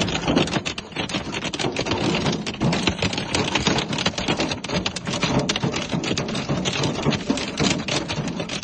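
Hail pelting down with rain: a dense, steady clatter of hailstones striking hard surfaces over the hiss of the downpour.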